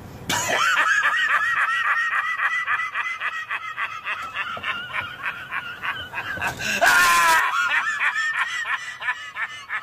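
A man laughing uncontrollably in rapid, high-pitched pulses, with a louder shriek about seven seconds in.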